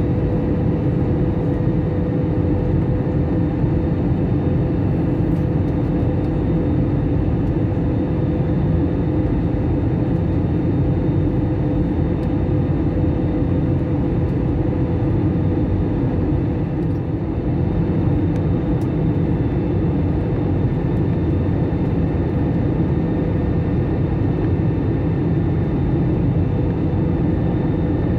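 Steady airliner cabin noise heard from a window seat over the wing: a loud, even rumble of engines and airflow with a steady hum, unchanging throughout.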